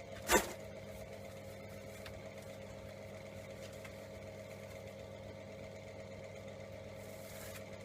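Workshop extraction fan running with a steady hum. A single short knock comes just after the start.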